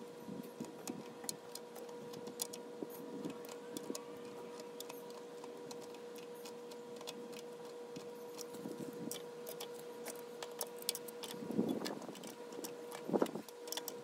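Scattered clicks and taps of adjustable pliers or a wrench on the threaded adapters of a Pentair booster pump as they are tightened, with a couple of louder handling clatters near the end, over a steady hum.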